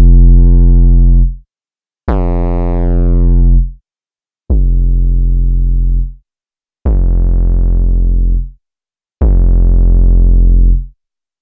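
Synthesized 808 bass in Serum, played as five separate held notes about every two and a half seconds, each lasting about a second and a half. The notes are deep and booming, with harmonics added by saturation and distortion from Ableton's Saturator and then Soundtoys Decapitator. The second note is brighter, with a falling sweep in its top end.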